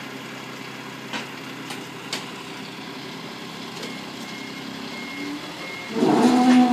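An engine idling steadily. From about four seconds in, faint short high beeps repeat, and near the end a much louder low pitched sound starts.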